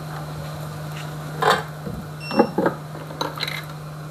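Scattered small clicks and taps of soldering tools working on a phone's charging-jack board, over a steady low hum. A brief faint high beep comes a little past halfway.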